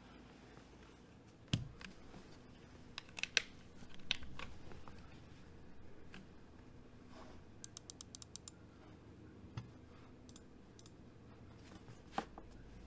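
Scattered single clicks and a couple of dull knocks from a Keychron K2 mechanical keyboard with unlubed Polaris Purple tactile switches, with a quick run of about eight light ticks around the middle, before steady typing begins.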